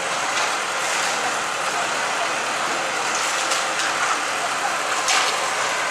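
Large outdoor bonfire burning: a steady rushing roar with a few sharp crackles and pops.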